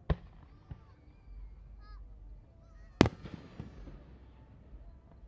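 Aerial firework shells bursting with sharp bangs: one just after the start, a smaller one under a second in, and the loudest about three seconds in, trailing off into a few fainter pops.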